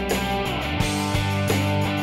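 Background music: guitar-led with a steady beat.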